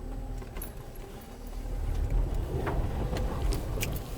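Land Rover Freelander 2 engine rumbling under load, heard from inside the cabin as the car crawls over rough off-road ground. It gets louder about halfway through, and a few sharp knocks and rattles come through in the second half.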